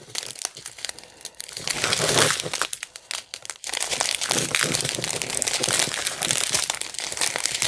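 Paper and plastic packaging crinkling as it is handled, in short bursts about two seconds in and then more steadily through the second half.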